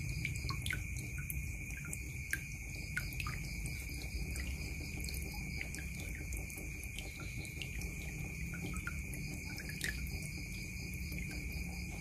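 Thin stream of water and drops falling into a partly filled plastic bucket of water: a steady splashing with many small, irregular plinks as drops hit the surface.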